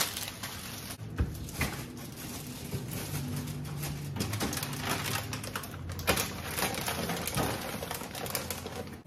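Crinkling plastic food bags and light knocks of packages set down on refrigerator shelves as groceries are put away: a run of irregular rustles and clicks with a few louder thumps.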